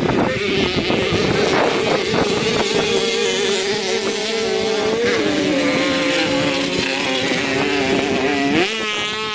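Several Kreidler 50cc two-stroke moped engines racing at high revs, their notes wavering as the riders work the throttles. Near the end one engine's pitch rises sharply and holds a higher note.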